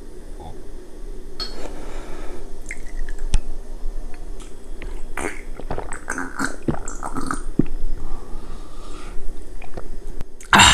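Close-miked mouth sounds of eating: chewing and small wet clicks, then sipping and swallowing a shot of soju, ending in a loud breathy exhale.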